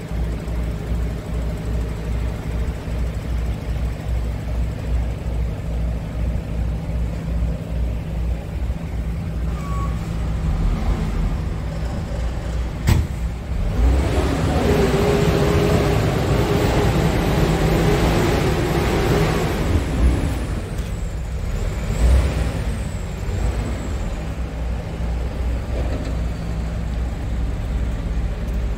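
Scania R410's 13-litre inline-six diesel idling steadily. A sharp click comes about halfway through, then a louder rushing noise swells for several seconds.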